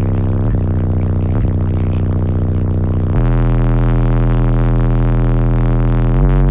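Four DS18 EXL 15-inch subwoofers walled into a van playing loud, deep, held bass notes that shift pitch a few times, heard from inside the cabin.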